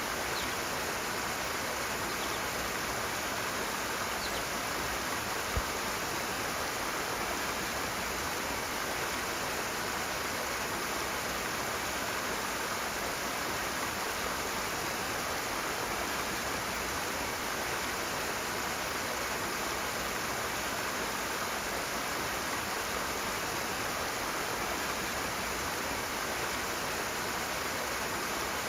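Rushing water in a steady, even flow. A single brief low thump about five seconds in.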